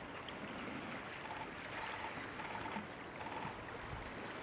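Shallow sea water lapping softly and steadily around shore rocks, with a few faint short high notes in the middle.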